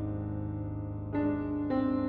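Slow, soft background piano music: held notes ringing on, with new notes struck a little past halfway and again near the end.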